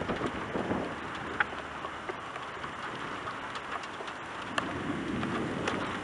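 Steady rain from a thunderstorm, with scattered sharp taps of drops striking close by.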